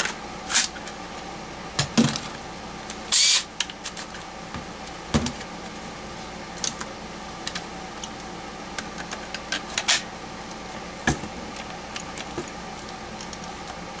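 Hard plastic clicks, knocks and a short scrape as a Makita 18V battery and a homemade battery adapter are handled and slid onto a Skil cordless drill. Scattered clicks, with a louder scrape about three seconds in.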